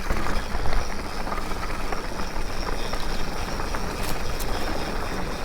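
Mountain bike rolling along a dirt singletrack trail: a steady rushing of tyre and riding noise with scattered small clicks and rattles.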